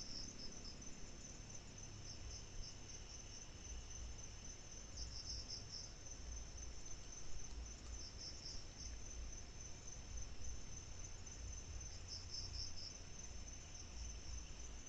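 Crickets trilling in a steady high tone, with short bursts of louder chirping every few seconds. A faint, irregular low rumble sits underneath.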